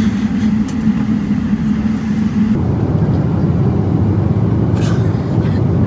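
Airliner cabin noise: a steady low rumble that changes character about two and a half seconds in, with a few faint light ticks near the end.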